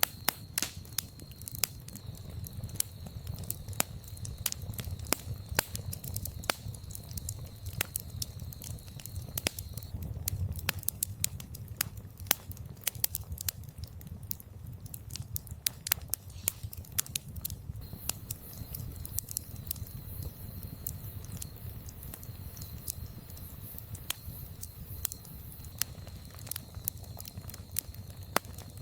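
Campfire of split firewood crackling, with frequent irregular sharp pops and snaps over a steady low rumble of burning.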